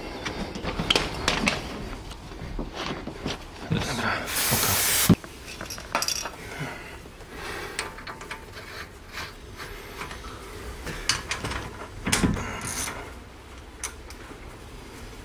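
Metal hand tools clinking and knocking against a car's rear wheel hub, with scattered clicks. About four seconds in, a hiss lasting about a second ends in a sharp click, and there is another cluster of knocks near the end.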